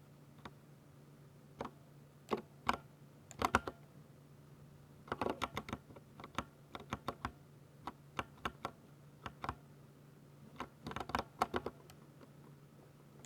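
Typing on a 60% mechanical keyboard with Ducky silver switches: keystrokes come singly and in quick flurries, with short pauses between them.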